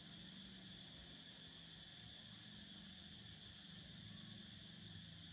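Faint, steady insect chorus: a high trill pulsing many times a second, with a low steady hum underneath.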